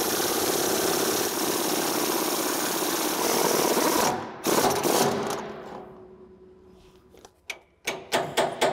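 Impact wrench hammering on a bolt of an M36 tank destroyer's track-tension adjuster for about four seconds, then a second short burst that fades out. A few sharp metal clanks follow near the end.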